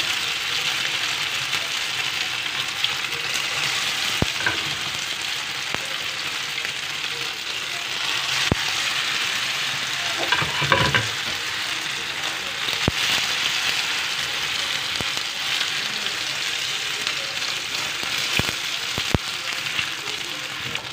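Chicken and potato cutlets shallow-frying in hot oil on a flat tawa griddle: a steady sizzle, with a few sharp ticks and a brief knock about halfway through.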